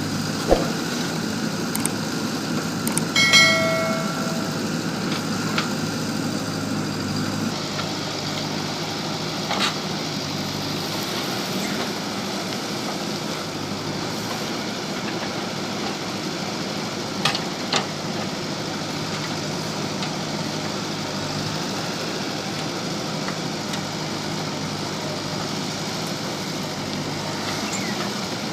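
JCB backhoe loader's diesel engine running steadily while it digs, with a few sharp metallic clanks. The loudest is a ringing clang about three seconds in, and two quick knocks follow a little past halfway.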